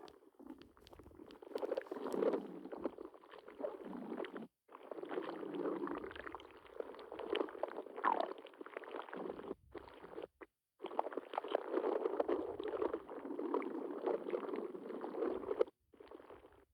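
A stomach gurgling and churning, recorded close up: continuous wet rumbling and bubbling, with one brief rising squeak about halfway through. The sound is broken by a few abrupt short silences.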